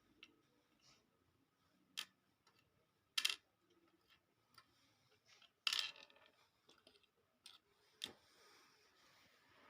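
Sharp clicks and short rattles of small hard parts and tools being handled on a workbench. The loudest are a short clatter about three seconds in and another just under six seconds in, with single clicks at about two and eight seconds.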